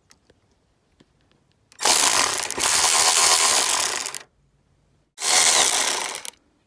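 Power ratchet running a grill flange nut down tight on its stud through a socket and extension, in two runs: a longer one of about two and a half seconds, then a shorter one of about a second.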